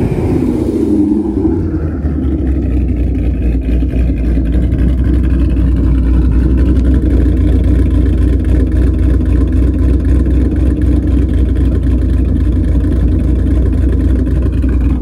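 2018 Ford Mustang GT's 5.0 V8 through catless headers and an AWE Touring cat-back exhaust, revs dropping back in the first second or so, then idling with a steady, deep rumble.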